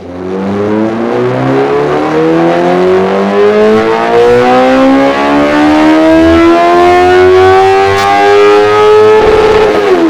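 Honda CBR 650R inline-four engine through a Dominator full exhaust system, revving up in one long, steady climb in pitch under load, as in a full-throttle dyno pull. Near the end the revs level off at the top for a moment, then begin to drop as the throttle closes.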